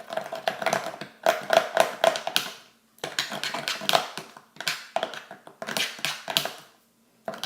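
Freshly activated slime of clear glue being stirred with a mixing tool in a container: irregular runs of sticky clicks and taps, pausing briefly twice.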